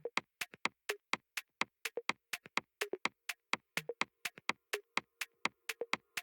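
Electronic music: a fast, steady, clicky percussion beat of about four to five hits a second, with a faint held tone coming in about two seconds in.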